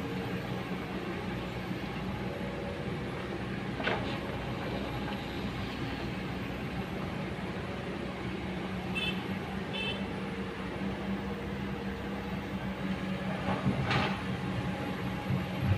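Kobelco hydraulic excavator's diesel engine running steadily under load as the machine digs, dumps and swings, with two brief louder surges about four seconds in and near the end.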